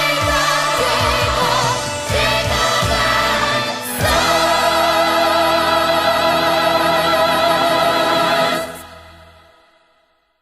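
Choir and orchestra finishing a musical-theatre number: full-voiced choral singing over a moving bass line, then from about four seconds in a big final chord held for some five seconds, which stops and dies away to silence near the end.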